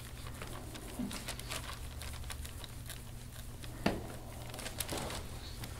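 Chiropractor's elbow working into a man's upper back: faint skin-and-cloth rubbing and crinkling with scattered small clicks, and one sharp click about four seconds in.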